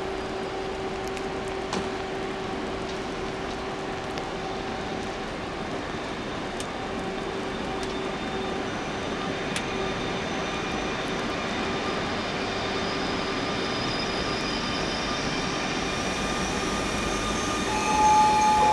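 EU160 (Newag Griffin) electric locomotive drawing a passenger train slowly into a station: a steady hum that grows slowly louder as it nears, with thin high whining tones coming in over the second half. A loud, single high tone sounds briefly near the end.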